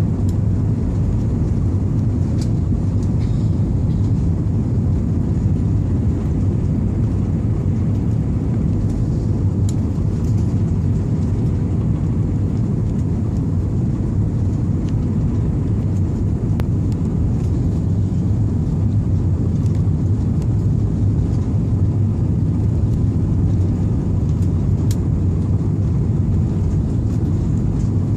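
Airliner cabin noise: a steady low rumble of the engines and airflow, with a few faint clicks.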